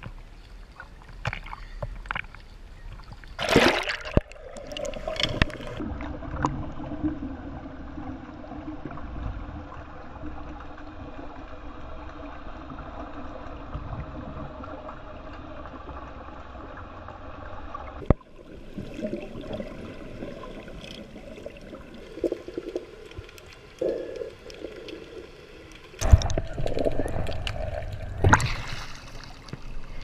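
Sea water splashing as the camera goes under about three seconds in, then muffled underwater water noise heard through a GoPro's waterproof housing, with splashing again near the end as it breaks the surface.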